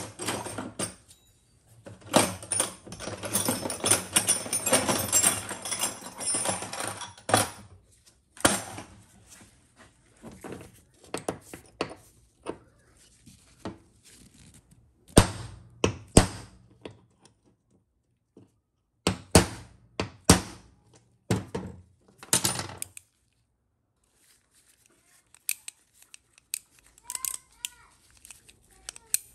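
Hammer blows on a drift punch driving in the pin that holds the gear on a TH350 transmission governor's shaft: a series of sharp metallic taps, several in quick pairs. A few seconds of rustling, scraping noise come first.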